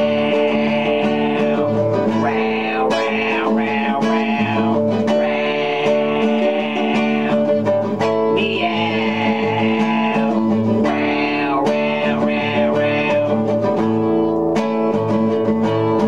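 Acoustic guitar strummed steadily, with a man's wordless vocal sounds rising and falling over it.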